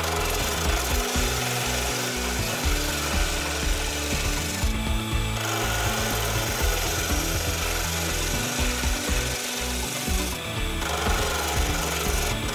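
Gouge cutting a spinning spalted hickory blank on a wood lathe: a steady hissing, scraping cut, with brief breaks about five seconds in and again near ten seconds as the tool eases off the wood.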